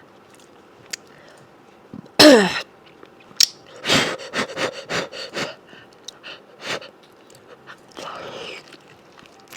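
Close-miked mukbang eating: a loud slurp that drops in pitch about two seconds in, then a quick run of wet smacks and clicks of chewing.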